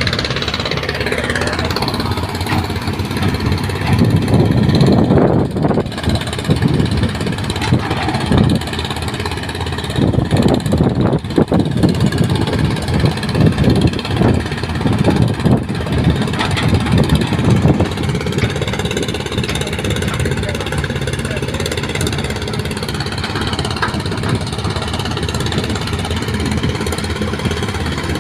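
Excavator's diesel engine running and working under load, its pitch rising and falling. A stretch of irregular knocking and clattering runs through the middle.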